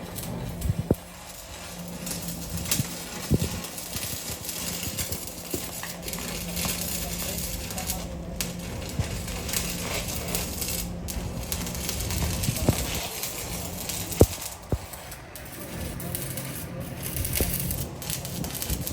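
Workshop sounds during exhaust installation: scattered sharp metallic clinks and knocks over a steady low hum and hiss.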